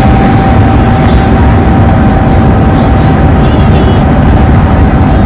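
Road and wind noise of a moving car heard from inside the cabin: a loud, steady rush, heaviest in the low end, with a steady whining tone over it.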